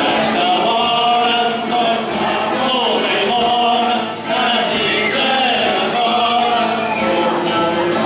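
A group of men singing a Holy Ghost folk song together, a foliões cantoria, over guitar accompaniment, with a tambourine jingling on the beat.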